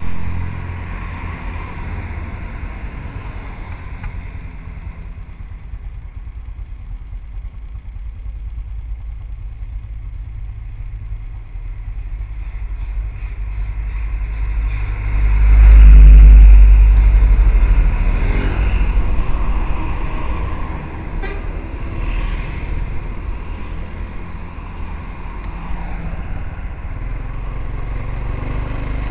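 Passing road traffic: cars and motorcycles going by with a steady low rumble. A loaded truck passes close about 16 seconds in, the loudest moment, and the sound then fades.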